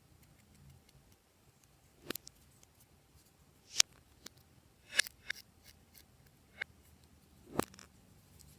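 Glossy slime being worked by hand, giving a series of sharp, irregular popping clicks with short quiet gaps between them.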